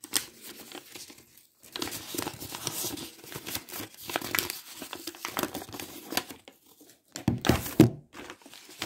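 A folded paper note being unfolded by hand, with irregular crinkling and rustling of the paper. The handling noise gets louder for about a second near the end.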